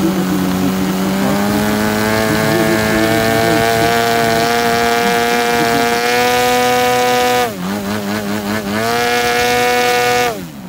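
Desert Aircraft DA-70 twin-cylinder two-stroke petrol engine of a large RC aerobatic plane running on the ground at a steady high speed. About seven and a half seconds in it is throttled down sharply, wavers briefly and comes back up, then it is throttled back near the end.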